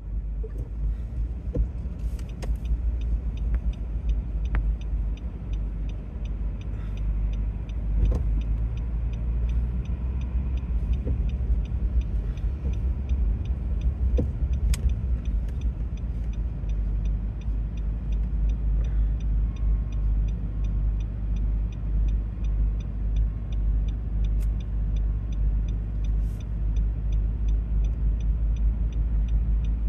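A road vehicle driving with a steady low rumble, a faint evenly spaced ticking running through it, and a few sharp knocks.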